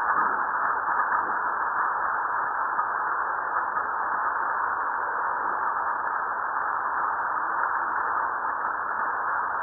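Seismometer recordings from Fuego volcano, vertical and north components, sped up and played as sound: a steady hiss with no distinct event. This is the volcano's low-level background seismic signal between explosions.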